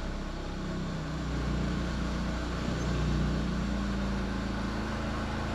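Porsche 944 four-cylinder engine idling steadily with a low hum. The engine's vibration is passing through motor mounts whose rubber has collapsed.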